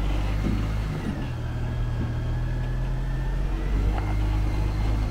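Chevrolet Colorado ZR2 pickup's 2.7-litre turbo four-cylinder engine running at low revs as it crawls over rock: a steady low rumble, with a faint high whine that dips and rises in pitch.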